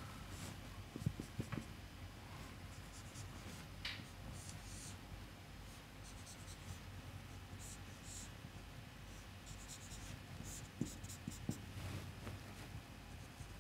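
Dry-erase marker squeaking and scratching faintly on a whiteboard in short strokes as a spring-and-mass diagram is drawn, with a few soft knocks.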